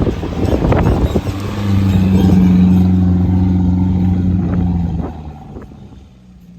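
Motor vehicle engine running at a steady pitch. It grows louder about one and a half seconds in, holds for a few seconds, then fades away near the end.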